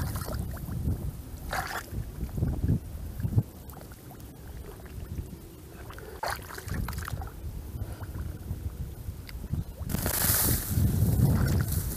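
Hands sloshing and squelching in shallow muddy water while groping into a mud hole for eels, in a few short splashy bursts. Wind buffets the microphone with a low rumble, gusting louder about ten seconds in.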